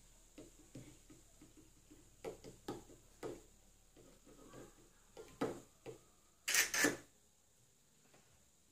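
Small plastic water pistol knocking and clicking against a plastic cup as it is held in the water to refill it, with a louder double burst of noise about six and a half seconds in.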